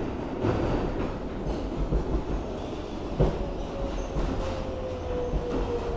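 R142A subway train rumbling and clattering over rail joints as it pulls out of a station, heard from inside the car. A thin whine sets in about halfway through and falls slightly in pitch.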